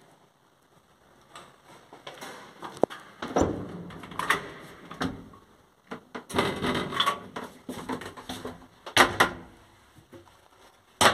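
Doors of a 1960s ZUD passenger lift worked by hand: the metal swing landing door and the wooden cabin doors opening and shutting, with latch clicks and rattling. A sharp thud about nine seconds in is the loudest, and another comes right at the end.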